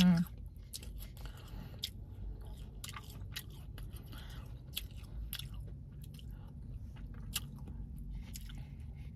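Close-up chewing and biting of fresh cut fruit, with scattered crisp crunches and wet mouth sounds over a steady low hum.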